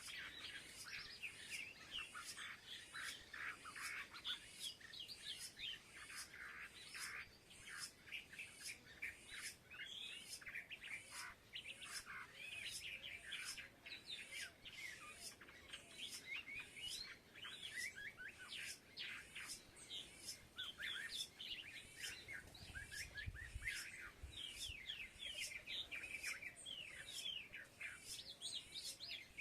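Small birds chirping busily, many short, quick chirps overlapping without a break, with a steady run of faint ticks behind them.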